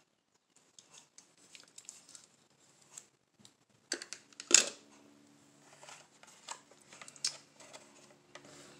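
Small plastic clicks and taps as a diecast Hot Wheels car is handled and slotted into a clear plastic display case compartment, with one sharper knock about four and a half seconds in.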